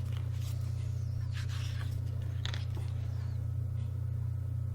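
Paper pages of a book being turned, a few soft rustles, over a steady low electrical hum.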